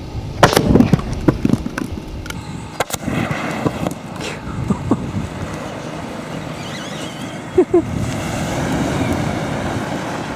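Lithium polymer battery venting and burning: a cluster of sharp pops and crackles in the first second and a half, then a steady hissing rush with scattered cracks.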